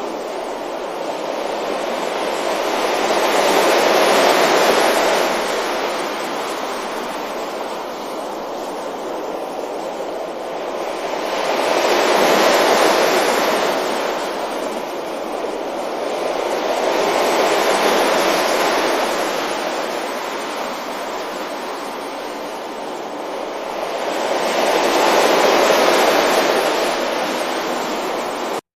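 Sea waves breaking on a beach: four slow swells of surf, each rising and falling over several seconds, before the sound cuts off suddenly near the end.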